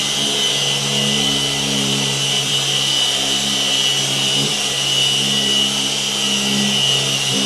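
Rupes Mark III 21 mm throw random orbital polisher running steadily while buffing compound on a painted panel: a steady motor hum with a high whine over it, dipping briefly twice as the pad is worked.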